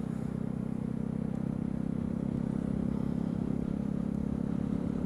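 Yamaha YZF-R125's single-cylinder four-stroke engine running at a steady cruise, an even, unchanging drone, with wind and road noise over the helmet-mounted camera.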